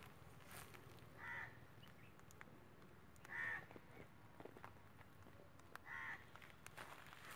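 A crow cawing three times, one short call every two to three seconds.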